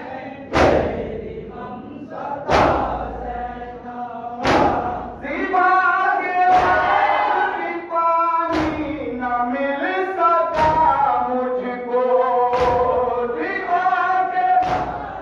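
Matam: a crowd of mourners slapping their chests in unison, one loud slap every two seconds. From about five seconds in, a group chants a noha (lament) in time with the slaps.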